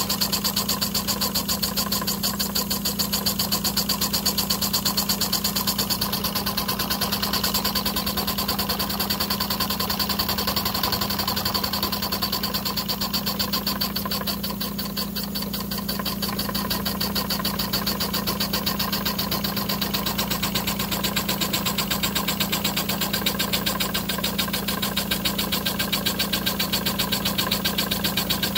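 Toy steam engine driving a line shaft and belt-driven model workshop machines, running steadily: a fast, even mechanical beat over a steady hum.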